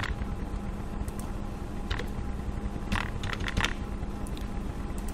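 A few scattered keystrokes on a computer keyboard as figures are typed in, over a steady low electrical hum.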